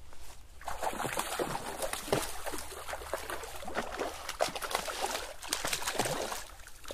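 Hooked rainbow trout thrashing at the surface of a shallow creek, a run of irregular splashes that begins about half a second in and dies away near the end.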